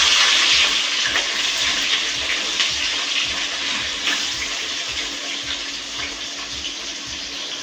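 Sliced onions frying in hot oil in a steel kadhai: a loud, dense sizzle that slowly dies down as the oil cools around them.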